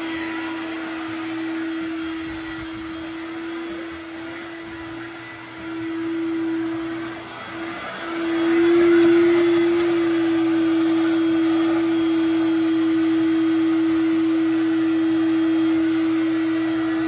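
Vacuum cleaner running steadily, its hose sucking loose rust and debris out of the water jacket ports of a Triumph TR6 engine block. The motor dips briefly about seven seconds in, then runs louder and slightly higher in pitch.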